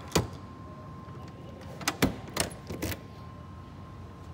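A key on a keyring worked in a lock on the Honda Helix scooter's plastic body, with rattling keys and sharp clicks. There is one click near the start, then a quick cluster of four or five clicks about two seconds in.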